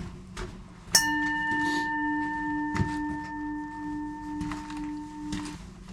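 A bell struck once about a second in, ringing on with a wavering low tone for about four and a half seconds.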